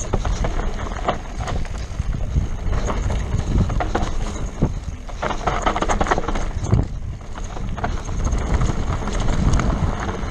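Mountain bike riding fast down a rough dirt and stone trail: tyres rolling and crunching over the ground, the bike rattling and knocking over bumps many times a second, with wind rumbling on the microphone.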